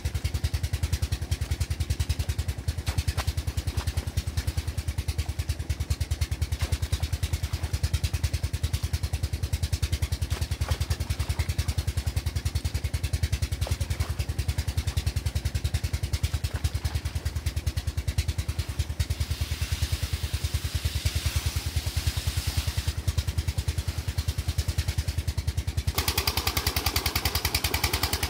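A tube well's 16-horsepower Chinese 'Peter' diesel engine running steadily with a fast, even thumping beat while it pumps irrigation water. Near the end the hiss of water gushing from the outlet pipe joins it.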